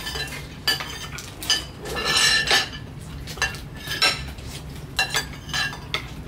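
Metal spoons and forks clinking against ceramic plates and bowls as people eat: irregular clinks, busiest about two seconds in.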